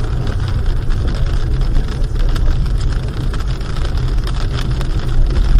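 Car driving on a wet road in rain, heard from inside the cabin: a steady low rumble of engine and tyres, with many small ticks of rain on the windscreen.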